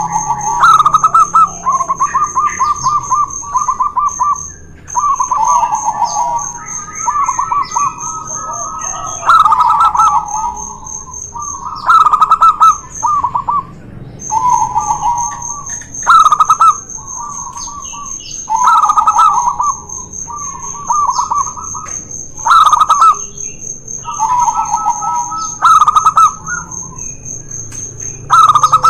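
Zebra doves (perkutut) singing their rapid trilled cooing phrases again and again, a few seconds apart. At times two birds call over each other at slightly different pitches. A steady, high, shrill pulsing tone runs beneath most of it and breaks off briefly about halfway through.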